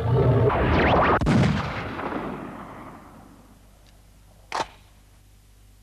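Sound effect of the flaming Manga Entertainment logo ident: a loud explosive rush that dies away over about three seconds, then a short sharp crack about four and a half seconds in. Under it runs a steady low hum from the VHS tape transfer.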